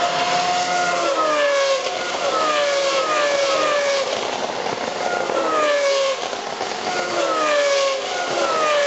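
Several open-wheel race cars' V8 engines at high revs passing one after another, their engine notes falling in pitch again and again as they go by.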